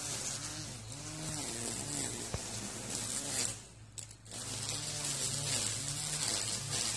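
Gas string trimmer (weed eater) cutting weeds, its engine revving up and falling back over and over. It drops away briefly a little past halfway, then picks up again.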